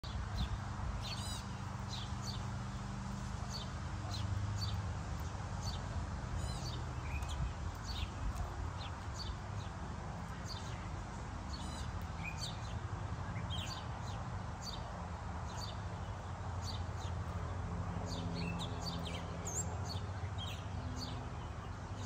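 Small songbirds chirping again and again: short, high, falling chirps, often several a second. Underneath is a low, muffled murmur of distant voices.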